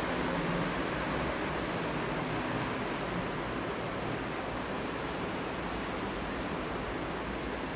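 Steady rushing noise with a low rumble underneath, without any distinct knocks, tones or voices.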